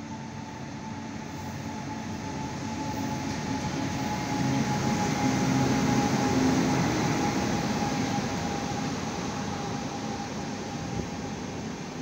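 WAP-7 electric locomotive hauling an LHB passenger rake rolling past: the rumble grows to its loudest about five to seven seconds in as the locomotive goes by, then eases as the coaches follow. A thin steady whine runs through it, sinking slightly in pitch.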